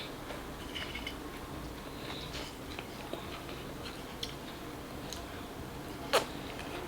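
Quiet room with a few faint clicks and taps, and one sharper click about six seconds in.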